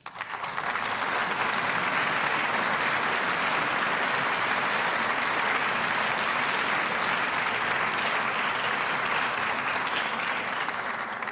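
Audience applauding in a large hall: steady clapping that starts abruptly and fades away near the end.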